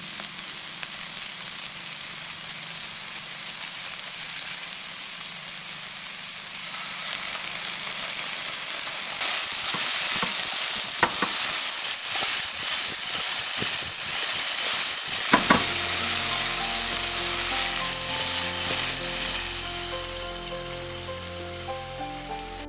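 Cauliflower and carrots sizzling in oil in a nonstick wok, the sizzle growing louder about halfway through as they are stirred quickly with a spatula, with a few sharp scrapes or knocks. Soft piano music comes in during the last third.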